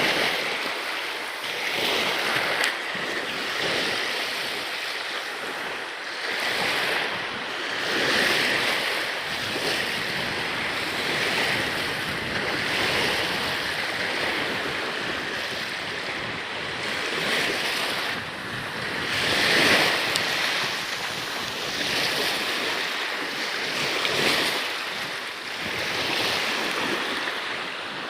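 Water splashing and rushing along a sailing kayak's hull, surging irregularly every second or two, with wind buffeting the microphone.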